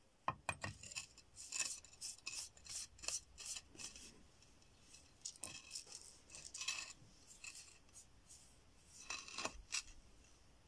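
A small sharp stone scraping along the edge of a bone blade to shape it, in short rasping strokes that come in bunches, the last bunch near the end.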